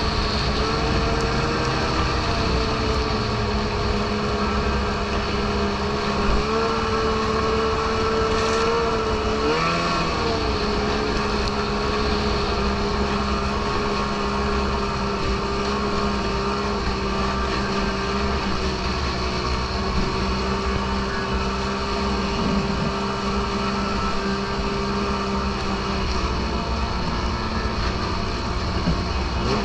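Snowmobile engine running at a steady cruise, heard from on board. Its pitch lifts briefly a few times in the first ten seconds, then holds steady.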